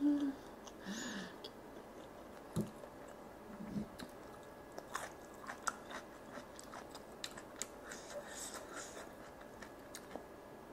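Close-miked chewing of sauce-coated charcoal-grilled chicken, with wet mouth clicks and soft smacks, busiest in the second half. It opens with a short low hum.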